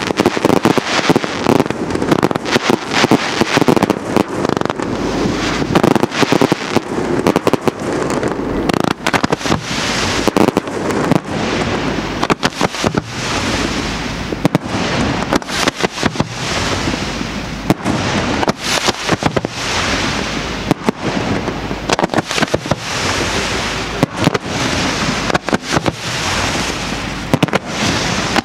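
Aerial fireworks display: a rapid, unbroken barrage of shell bursts, many sharp bangs a second, with no pause.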